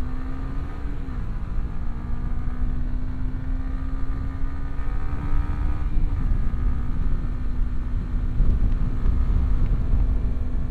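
Sport motorcycle engine pulling under acceleration from the rider's seat, its note climbing and then dropping at an upshift about a second in and again about six seconds in, then holding steady. Heavy wind rumble runs underneath.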